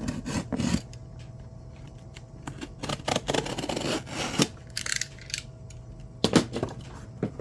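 A package being handled and opened by hand: scattered clicks and knocks, with a stretch of scraping and rustling about two and a half seconds in, and a couple of sharp clicks near the end.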